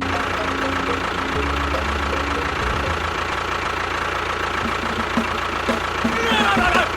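Engine running steadily at idle with a fast, even knock. Near the end a few gliding tones come in.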